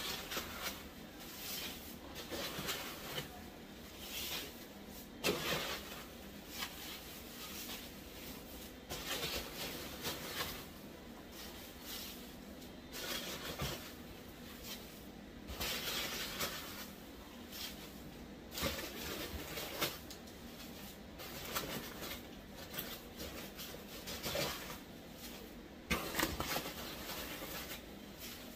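Packing peanuts being scooped out of a cardboard box into a plastic bag: irregular rustling of the loose peanuts and the crinkling bag, coming in uneven surges.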